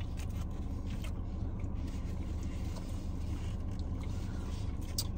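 Steady low hum of a car idling, heard inside the cabin, with a few faint small clicks and rustles from someone eating.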